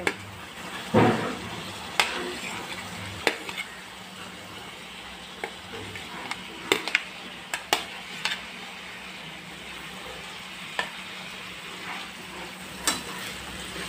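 Tomato gravy sizzling in a frying pan as fried potato cubes are pushed in off a plate with a spoon and stirred. A steady sizzle, with scattered sharp clicks and scrapes of the spoon against the plate and pan.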